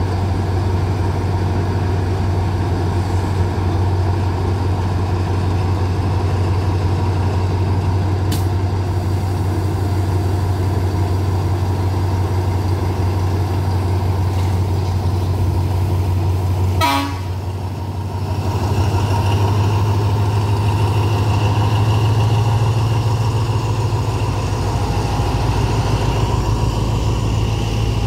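Alsthom diesel-electric locomotive running steadily as it passes, hauling a container freight train. Its engine drone is loud and constant. A short sharp burst comes about halfway through, then the drone carries on under the passing wagons.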